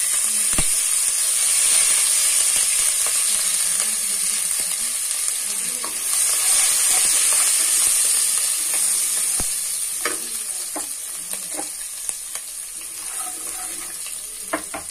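Chopped green and red chillies sizzling in hot oil with mustard seeds, cumin and curry leaves in a kadai, an Indian tempering (tadka). The sizzle starts suddenly, swells again about six seconds in and then slowly dies down, while a wooden spatula stirs and knocks against the pan a few times.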